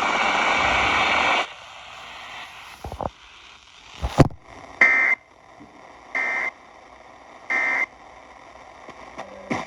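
Radio hiss for about the first second and a half, then a couple of clicks, then three short bursts of Emergency Alert System end-of-message data tones, evenly spaced a little over a second apart. These mark the end of the alert broadcast.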